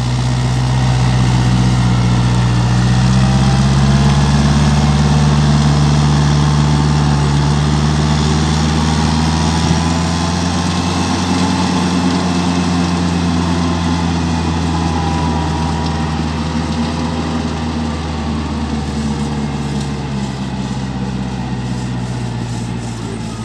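Kubota 4WD tractor's diesel engine running steadily while it pulls a working rotavator through wet clay mud, puddling it. The drone wavers slightly in pitch and gradually fades in the second half as the tractor moves away.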